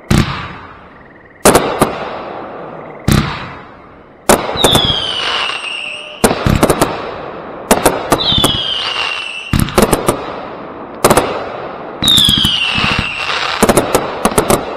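Consumer firework cakes firing: sharp single bangs about every second and a half at first, then rapid volleys of reports and crackle. Three whistles, each falling in pitch and lasting about a second and a half, sound among the bangs.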